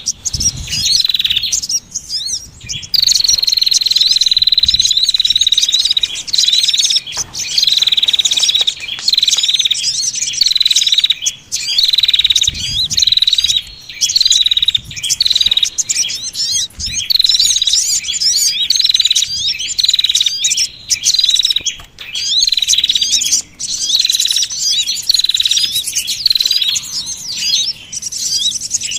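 Bird-trapping lure recording of several small songbirds calling at once. A busy chatter of high chirps and trills runs over a high whistled note that is held for a few seconds near the start, then repeated about once a second.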